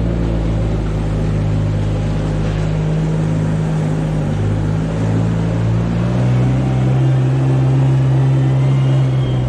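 An engine running steadily at a constant load, its note shifting slightly about six seconds in.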